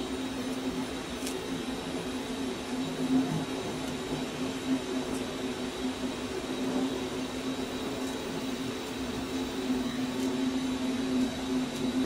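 Electric welding arc burning steadily on the microwave transformer's steel core: an even hiss and buzz with a low hum and a faint high whine.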